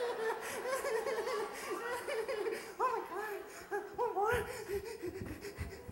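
High-pitched laughter in many short, quick bursts that rise and fall, with a few dull low thumps in the second half.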